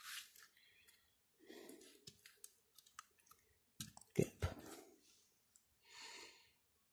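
Lego pieces being handled and pressed together: scattered faint small clicks, with a louder click cluster a little after four seconds in.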